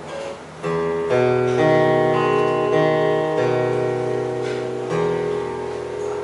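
Acoustic guitar strumming chords that ring on, a new chord struck every second or two, closing the song with no singing.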